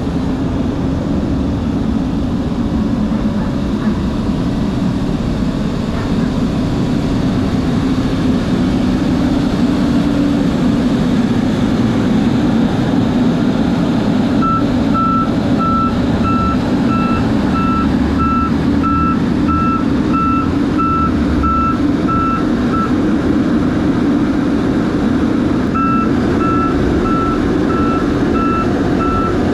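Heavy diesel truck engine running steadily. About halfway through, a reversing beeper starts sounding about twice a second, pauses for a few seconds, then resumes near the end.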